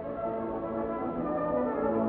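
Orchestral background music with sustained French horn and brass notes, swelling slightly.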